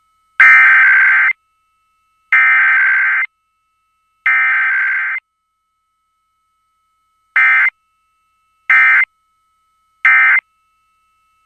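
Emergency Alert System data bursts from a broadcast required weekly test. The SAME header's warbling digital tones sound three times, about a second each, then three short end-of-message bursts.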